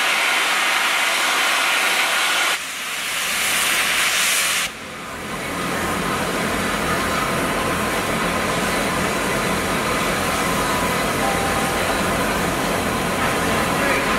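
Bulleid Merchant Navy class steam locomotive 35028 Clan Line hissing loudly as it vents steam while standing. The hiss drops abruptly about two and a half seconds in and again near five seconds, then carries on more evenly with a low rumble beneath.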